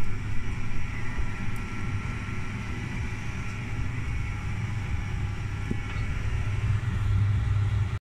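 A White Knight tumble dryer and a front-loading washing machine running together: a steady low motor hum with drum rumble.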